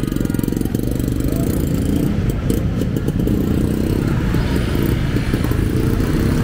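A motorcycle engine running steadily, a low, rapidly pulsing rumble.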